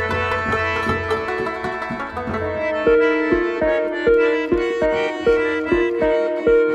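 Instrumental background music: plucked-string notes over a pad, with a steady low beat coming in about three seconds in.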